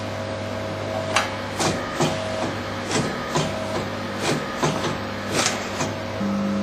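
Morso EH electro-hydraulic mitre guillotine working: a steady machine hum with about eight sharp knocks and cracks at irregular intervals.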